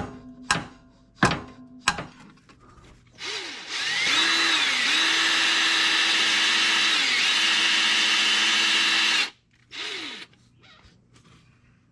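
A few sharp hammer taps on a center punch, then a power drill with a long center drill spinning up and boring into the oil pan, running steadily for about five seconds with two short dips in speed under load. It stops, then gives one more short burst.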